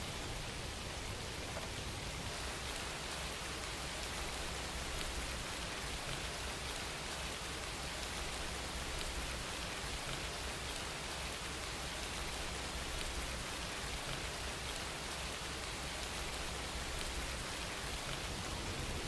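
Steady rain falling, a constant hiss with fine patter of drops.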